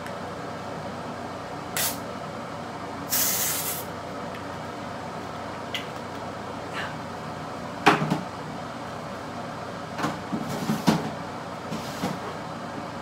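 Small makeup containers and tools being handled: a brief hiss about three seconds in, a few light clicks, a sharp knock near the middle and a run of clattering near the end, over a steady background hum.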